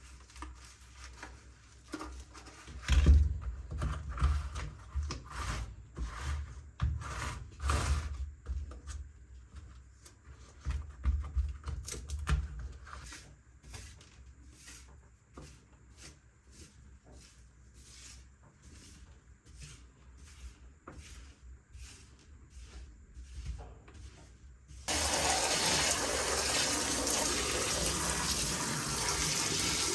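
Irregular plastic clicks, taps and knocks from a keyboard and its keycaps being handled during cleaning. About 25 s in, a steady rush of running water starts abruptly, as from rinsing under a tap.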